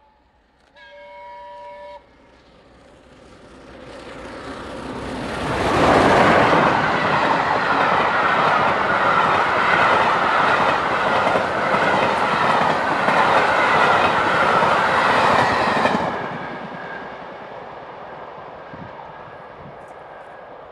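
The steam whistle of LNER Peppercorn A1 Pacific 60163 Tornado sounds a short chord about a second in. The locomotive and its coaches then approach at speed and rush past close by, loudest for about ten seconds, with wheels clattering on the rails. The sound then drops sharply and fades into the distance.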